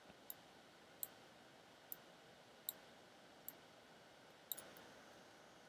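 Computer mouse clicking: about six short, sharp clicks, roughly one a second, with a quick double click near the end, over near silence.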